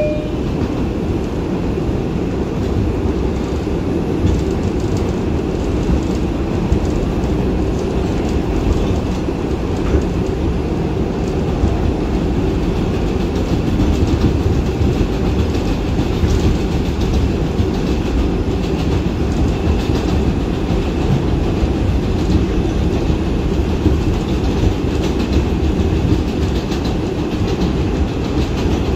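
New York City subway 2 train running on elevated track, heard from inside the car: a steady rumble of wheels on rails.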